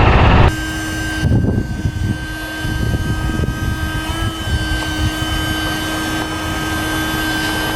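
A loud diesel-type engine noise cuts off about half a second in. It gives way to the quieter, steady whine of a Kennis E-Power crane's electric hydraulic drive running, with a few low knocks soon after.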